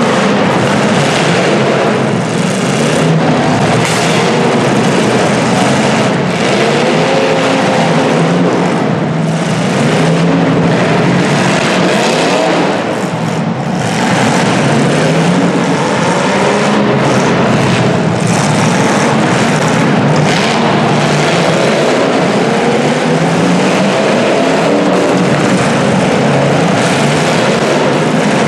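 Several 1980s full-size demolition derby cars' engines running and revving at once, their pitches rising and falling over one another.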